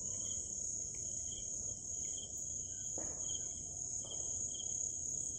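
Insects calling: a steady high-pitched trill, with a second, lower call pulsing about twice a second.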